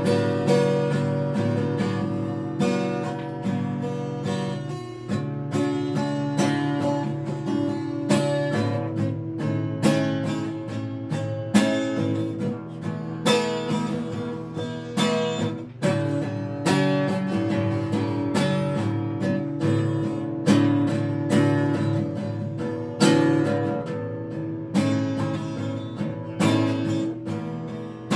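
Acoustic guitar played without singing: strummed chords with regular strokes.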